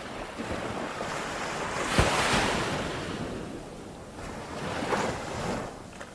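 Ocean waves breaking and washing in: one loud crash about two seconds in that fades away, then a second, smaller surge near five seconds.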